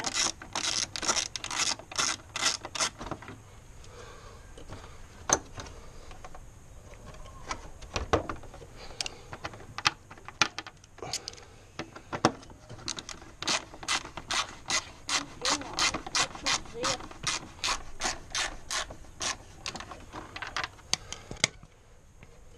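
Socket ratchet clicking in quick runs as a bolt is turned, with a few scattered single clicks in a quieter stretch in the middle.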